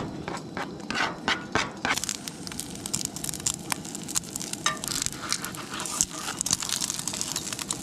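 Metal spork scraping and clicking against a cast-iron skillet as an omelette is folded over, over the crackle of eggs cooking in the hot pan. Sharp clicks and scrapes come irregularly, bunched about a second in and again around five to six seconds.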